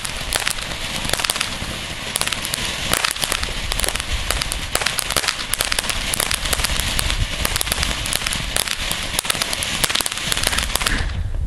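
Ground fountain firework burning, a steady hiss full of dense, rapid crackling as it sprays sparks. It dies away about a second before the end as the fountain burns out.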